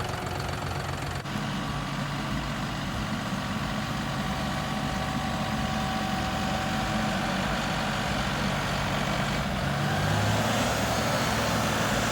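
John Deere 5045E tractor's 2.9-litre turbo diesel engine idling steadily; about ten seconds in its note drops a little lower.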